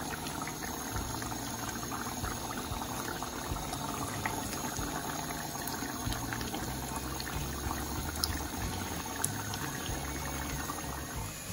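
Chicken curry bubbling as it simmers in a frying pan, a steady crackle of many small popping bubbles. A low steady hum runs underneath.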